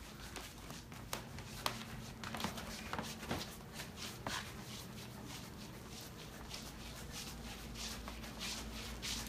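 Faint rubbing and shuffling as a corgi puppy is dragged on its belly across a hardwood floor, clinging to a floor mop's head, with scattered light clicks.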